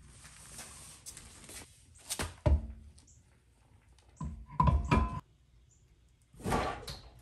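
Car wheel and tyre being refitted to the hub: a heavy thump about two seconds in, then a quick run of ringing metal clinks and knocks about four to five seconds in, and a short rushing noise near the end.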